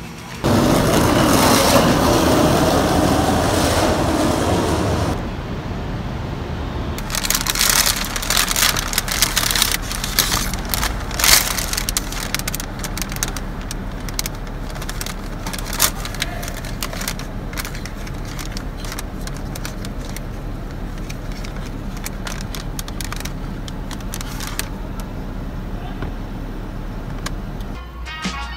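Paper gift bags rustling and crinkling as purchases are unwrapped by hand, with many sharp crackles, over a steady low hum of a car. The rustle is loudest for the first few seconds.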